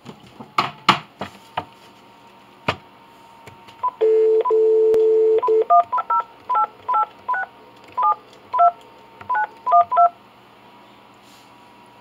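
Telephone being dialed: a few sharp clicks, then about a second and a half of dial tone from about four seconds in, followed by a quick string of about ten touch-tone (DTMF) keypad beeps entering a phone number.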